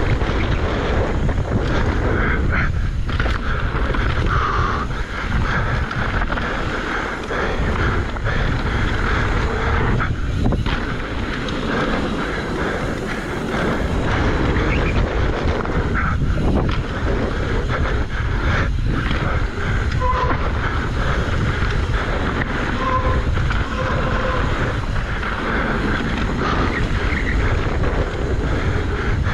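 Wind buffeting the camera microphone with the rumble and rattle of a mountain bike rolling fast down a dirt trail over jumps.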